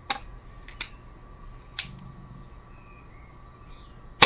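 A few light clicks as a .177 air pistol is loaded with a dart and handled, then near the end a single sharp crack as the pistol fires.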